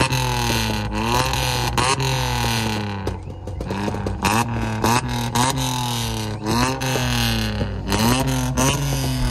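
A vehicle engine with a loud modified exhaust being revved in repeated throttle blips, about one a second, its pitch shooting up and falling back each time, over a steady low idle.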